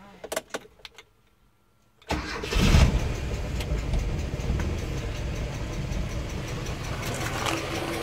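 A few light clicks, then about two seconds in the 1987 Mitsubishi Mighty Max's four-cylinder engine starts, rises briefly as it catches, and settles into a steady idle.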